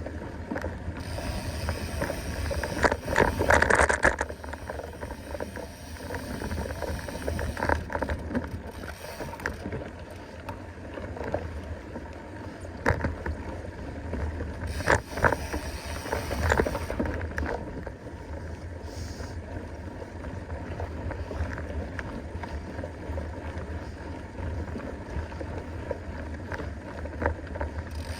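Mountain bike being ridden along a dirt trail: a steady low wind rumble on the microphone, with the bike clattering and knocking over bumps, loudest about three to four seconds in and again around fifteen seconds.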